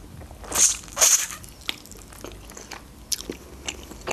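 Biting into a fried Georgian khinkali, its crisp fried dough crunching twice, about half a second and a second in. Quieter chewing follows, with small mouth clicks.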